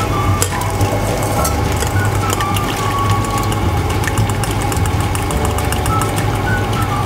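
Background music with a steady bass line and short melodic notes. Light clicks and scrapes of utensils against a pot run through it as miso is stirred into soup.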